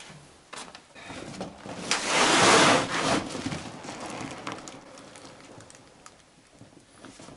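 Rustling of a fabric item being handled and spread out flat. It swells for a second or two, then fades, with scattered light knocks.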